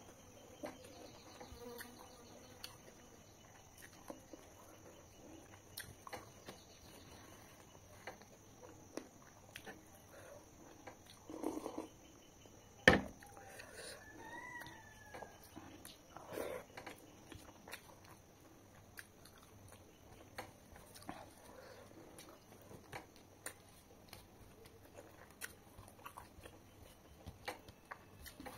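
Close-up eating sounds: a string of small wet clicks and smacks from chewing and from fingers working rice on a banana leaf, with one sharp click about halfway through.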